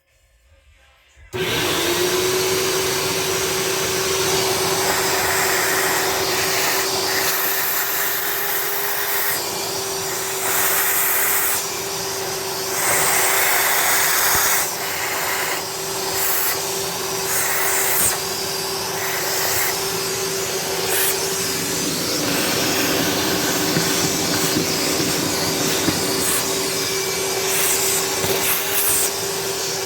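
A vacuum cleaner, likely a shop vac, switched on about a second in and running steadily with a constant whine. Its rush of air rises and falls as it is worked.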